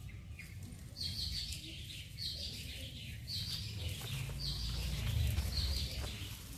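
A bird calling five times, about once a second, each a short high note that falls in pitch, over a steady low rumble.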